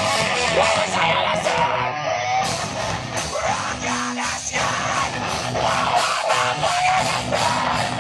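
Live rock band playing: electric guitar, bass guitar and drum kit, with a vocalist yelling into a microphone.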